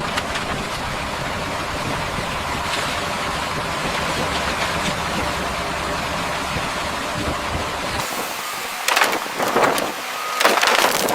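Heavy machinery engine running steadily for about eight seconds; then the sound changes to a few louder, irregular bursts of noise.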